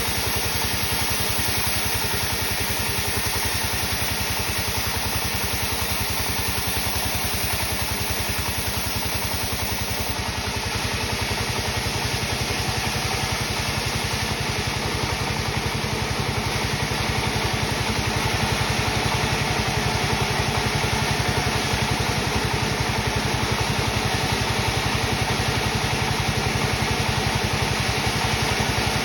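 Sawmill machinery running steadily with an even, fast engine-like pulse, growing a little louder in the second half.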